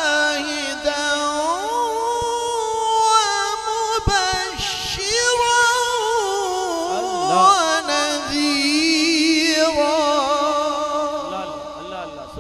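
A man reciting the Quran in the melodic tilawat style: one long melismatic phrase of held, wavering notes that steps up to a higher pitch after about a second and a half, then tapers off near the end.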